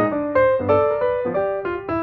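Piano playing a gentle piece, single notes and chords struck about three times a second.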